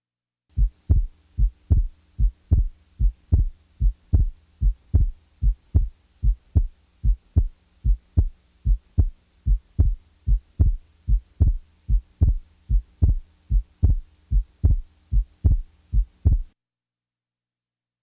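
Recorded heart sounds as heard on auscultation: a steady run of short, low, evenly spaced beats, about two and a half a second, over a faint hum. They start about half a second in and stop suddenly near the end.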